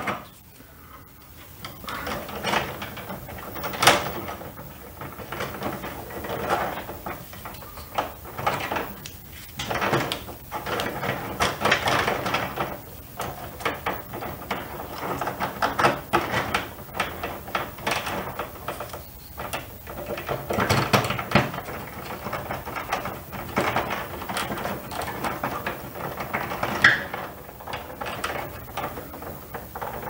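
Hands working a bundle of stiff electrical wires and a wire connector inside a fluorescent light fixture: irregular rustling, scraping and small clicks, with a sharper click about four seconds in and another near the end.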